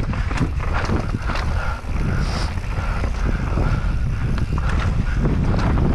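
Mountain bike descending a rough trail at speed: wind buffeting the microphone over a low rumble of tyres on dirt and rock, with frequent sharp rattles and knocks from the bike.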